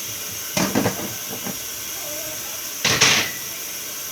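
Tap water running steadily at a sink while things are washed, with a brief clatter about half a second in and a louder splash near three seconds in.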